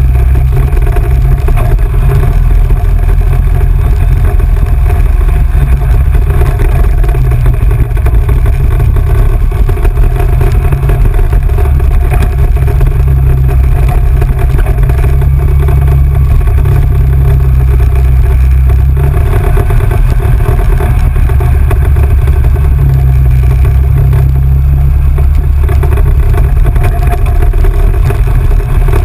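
Off-road vehicle engine running steadily under way on a dirt trail, under a loud, continuous low rumble.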